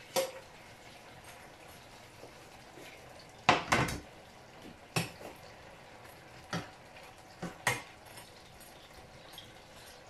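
Kitchen utensils knocking and clinking against cookware: about six separate sharp clinks spread out, the loudest a quick double knock about three and a half seconds in.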